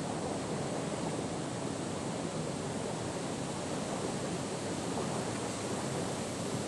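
Steady rushing of flowing river water, an even noise that does not change.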